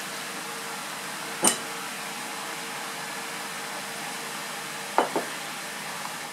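Steady background hum with a faint steady tone. A single sharp, ringing clink of glassware comes about a second and a half in, and two quick knocks about five seconds in.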